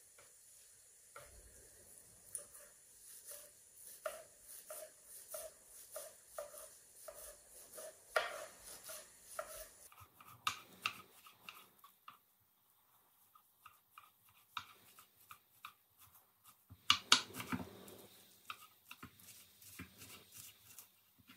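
Kitchen knife chopping leafy greens on a wooden cutting board, steady strokes about two a second, then a quicker run and a pause. Past the middle comes a brief louder burst of noise before the chopping resumes.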